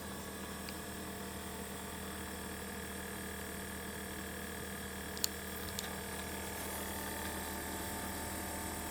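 Samsung NI34T9102AD inverter refrigerator compressor running with a steady hum of several fixed tones, getting slightly louder after about six seconds. Two faint clicks sound about five seconds in.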